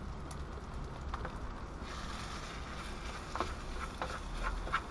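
Chili con carne with sausage sizzling in a pan on a portable gas stove, with a spatula clicking against the pan a few times in the second half.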